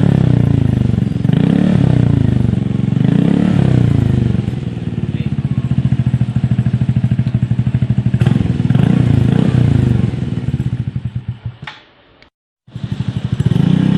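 Yamaha Mio 125S scooter's single-cylinder engine revved repeatedly through an aftermarket Akrapovic Hexatip 345 mm exhaust, the pitch rising and falling with each blip of the throttle. The sound fades near the end, cuts out for a moment, then the revving starts again.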